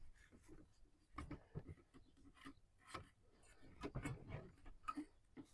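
Faint handling noises: scattered light clicks, taps and rubbing of plastic water-filter parts as a filter cartridge and housing are handled for reinstalling.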